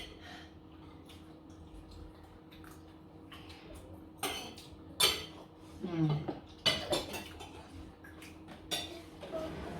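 Cutlery clinking and scraping against plates as people eat: scattered sharp clinks, the loudest about five and seven seconds in, with quieter scrapes between. A short voice sound comes about six seconds in.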